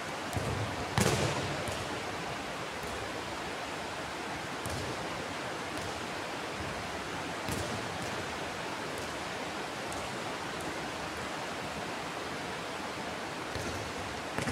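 A ball kicked on an indoor court and thudding off a wall: one loud echoing thud about a second in, then a few softer knocks spread out later. A steady hiss runs underneath.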